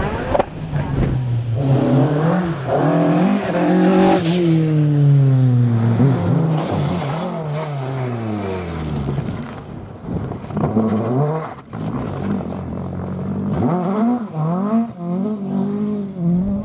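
Rally car engine revving hard and changing gear as it passes, the pitch sliding down for several seconds after about four seconds in, then rising again in short bursts of revs near the end.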